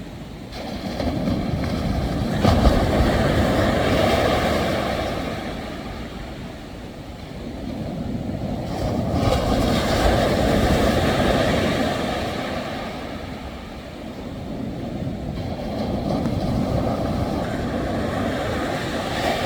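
Ocean waves breaking and washing ashore, the surf swelling and fading about every six to seven seconds.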